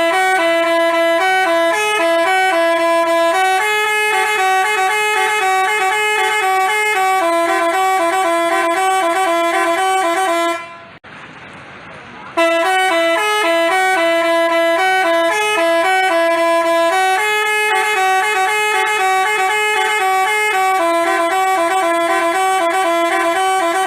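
Basuri telolet horn playing a multi-note melody, stopping about 11 seconds in and then playing the same tune again from the start after a pause of about a second and a half.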